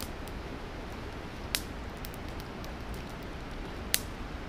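Campfire crackling with small ticks and two sharp pops, about a second and a half in and near the end, over the steady rush of the river flowing past.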